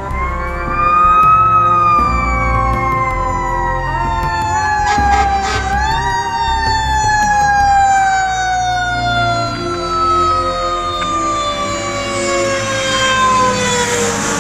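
Fire engine siren on an approaching and passing fire engine: it rises briefly, then slides slowly down in pitch, winds up once more about six seconds in and falls again. A few short horn blasts come about five seconds in, over the truck's low engine rumble.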